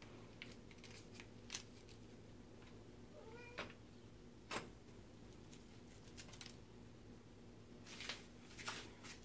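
Scattered sharp taps and scrapes as a cat paws and noses at a strip of masking tape on an electric coil stovetop, over a low steady hum. One short, faint meow comes about three seconds in.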